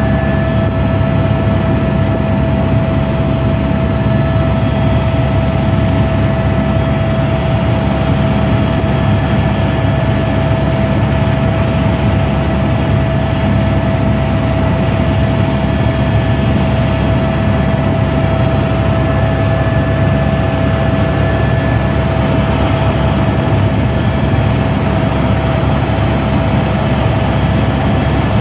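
Helicopter in flight heard from inside the cabin: a loud, steady drone of engine and rotor with a constant tone held over it.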